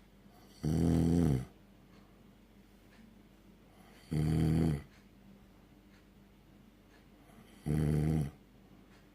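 Snoring in deep sleep: three long, pitched snores about three and a half seconds apart, each lasting under a second.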